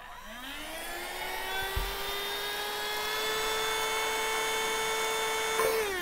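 Small handheld Gigi-Store mini vacuum cleaner switched on: its motor spins up with a rising whine over about a second, then runs at a steady high whine with a rush of air. It is switched off shortly before the end and winds down in falling pitch.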